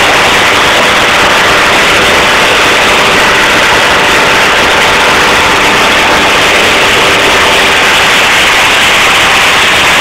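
Loud, unbroken hiss-like noise that holds the same level throughout, with a few faint steady tones running under it.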